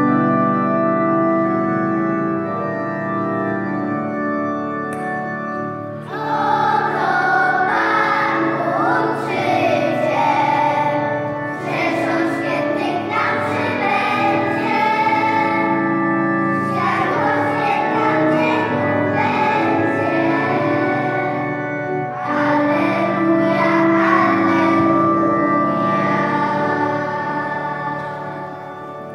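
Group singing, with children's voices, over instrumental accompaniment. About six seconds of sustained chords open, then the voices come in and sing through, growing softer near the end.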